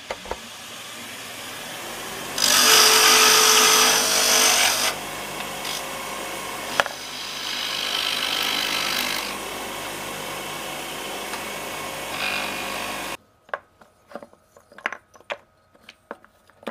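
Wood lathe running, with a turning tool cutting into a spinning mahogany blank as a tenon is turned. The cutting is loudest about two to five seconds in and again around eight seconds. The lathe sound stops abruptly about thirteen seconds in and is followed by a series of light clicks and knocks.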